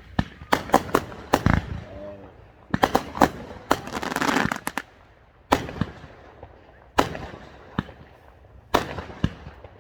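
Fireworks going off: sharp reports in quick clusters, with a stretch of crackling about four seconds in, then single bangs a second or so apart.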